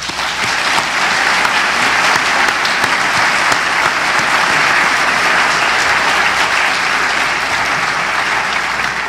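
Audience applauding: a steady round of many hands clapping that fades away at the end.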